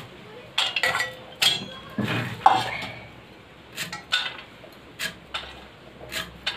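Stainless-steel bowl clanking onto a concrete floor with a short metallic ring about two and a half seconds in, amid sharp clicks and knocks of fresh coriander being cut on a boti blade, which go on as lighter ticks every half second or so.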